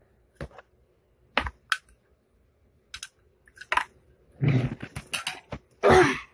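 Small objects being handled: scattered sharp clicks and taps. A longer rustle comes about four and a half seconds in, and a louder burst near the end.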